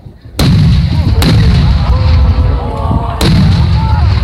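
Fireworks shells bursting at close range: three loud booms, about half a second in, at a little over a second, and at about three seconds, each followed by a long rumble.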